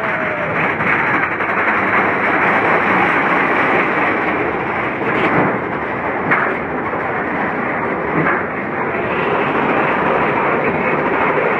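Mine-train roller coaster running along its track, a loud steady rumble and rattle, with a few sharp knocks about halfway through.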